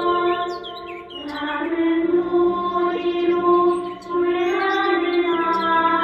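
A children's choir song playing in long held notes, with birds chirping over the music.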